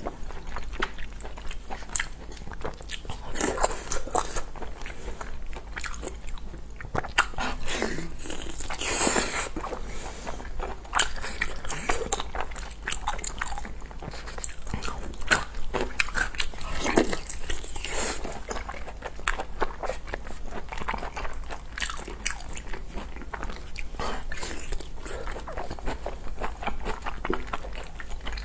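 Close-miked eating: a person chewing food, with many quick, irregular mouth clicks and smacks.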